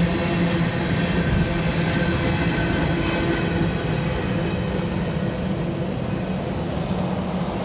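Freight train of covered hopper cars rolling past close by: a steady rumble of wheels on rail with a low hum under it, easing slightly toward the end as the last car goes by.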